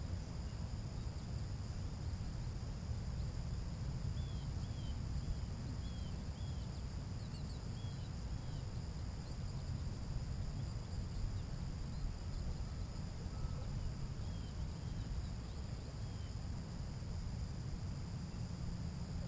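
Steady high insect trill, typical of crickets, with a few short bird chirps, over a louder low steady rumble.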